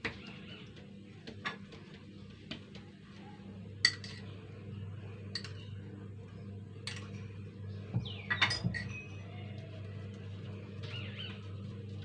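A baking pan clinking and knocking now and then against the counter as oiled pizza dough is pressed out in it by hand, over a low steady hum. There are about half a dozen sharp clinks, the loudest about four seconds in and near eight and a half seconds.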